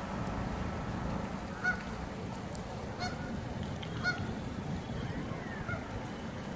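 Geese honking: three short honks roughly a second apart and a fainter one later, over a steady outdoor background hum.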